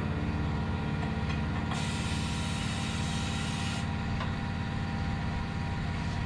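Tire-changer machinery running with a steady low hum. A hiss of compressed air starts about two seconds in and lasts about two seconds.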